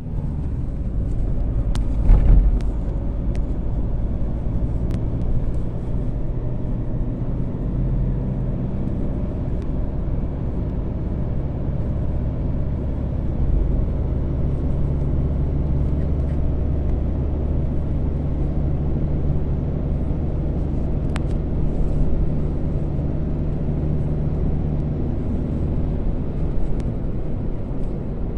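Steady low rumble of a running motor vehicle, with a few faint clicks.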